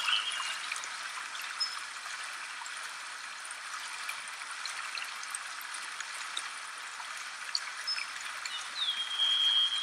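Steady rush of a flowing stream. A bird gives a few faint short whistles, and near the end one longer whistle that slides down into a held note.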